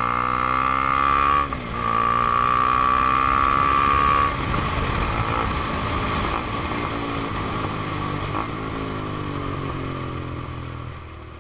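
KTM 390 Duke's single-cylinder engine through a Black Widow aftermarket exhaust, revving up under hard acceleration, with a brief dip in revs about a second and a half in (an upshift), then climbing again. About four seconds in the throttle closes and the engine runs lower and quieter as the bike slows, fading out near the end.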